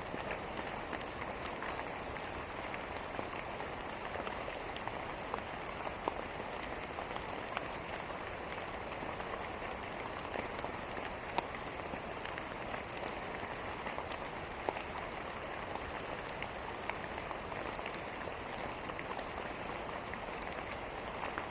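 Steady rain falling, a dense even hiss with many individual drops pattering on a surface.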